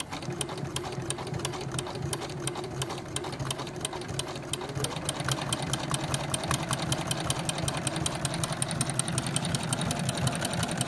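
Domestic electronic sewing machine running steadily, overcasting the edge of denim through an overlock presser foot: a rhythmic clatter of needle strokes over the motor's hum, which rises a little in pitch about halfway through.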